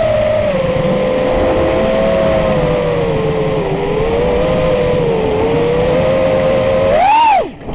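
FPV quadcopter's electric motors and propellers whining steadily, the pitch drifting up and down a little with the throttle. About seven seconds in, the pitch shoots up and then drops sharply as the throttle is punched and cut.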